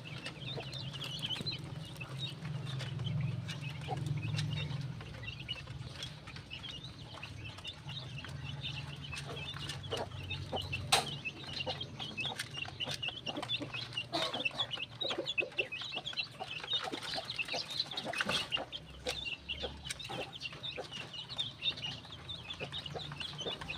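Flock of Cobb broiler and native chickens clucking and peeping continuously in short, high, overlapping calls, with a few sharp knocks along the way.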